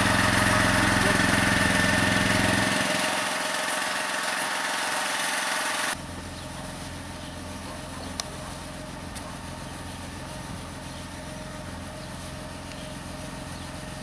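Small engine running steadily, driving the pump of a power sprayer that feeds a disinfectant hose. About six seconds in the sound cuts abruptly to a quieter, steady engine hum.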